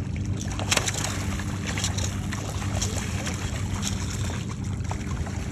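A motor running steadily with a low hum, and faint sharp clicks about once a second.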